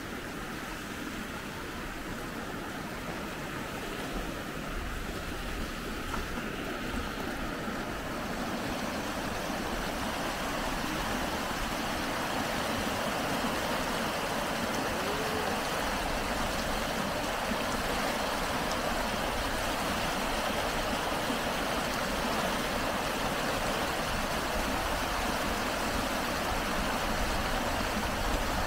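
Running water of a hot-spring stream, a steady rush that grows gradually louder.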